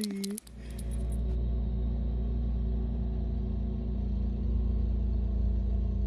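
Snowblower engine running steadily as it throws snow, a steady hum over a low rumble.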